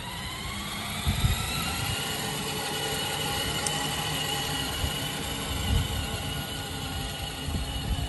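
Electric drive motors and gearboxes of a kids' battery-powered ride-on 4x4 toy truck whining as it drives. The whine rises in pitch over the first two seconds and then holds steady. A few low thumps come through, the loudest about a second in.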